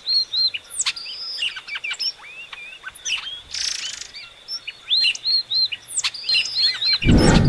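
Epaulet oriole (Icterus cayanensis) singing: a quick run of short whistled chirps and hooked notes with a thin steady high tone beneath. A loud low rumble comes in near the end.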